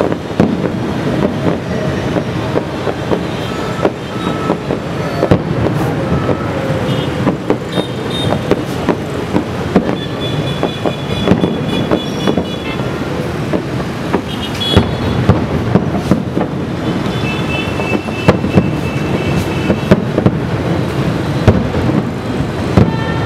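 Aerial fireworks bursting at a distance: many sharp bangs and pops over a steady din of city traffic and crowd. A few held high tones sound now and then.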